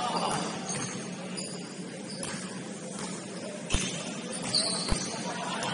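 Basketball gym ambience: a steady low hum under diffuse court noise, with two short low thumps, just under four and about five seconds in, and brief high squeaks between them.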